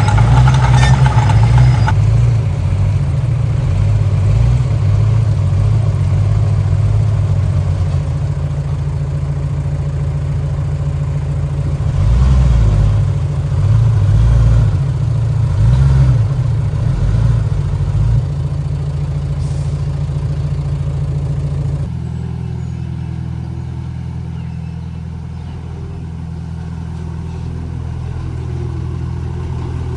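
Komatsu D31P bulldozer's diesel engine running, getting louder under load near the start and again midway through. It changes abruptly about three-quarters of the way in and carries on at a steadier, lighter note.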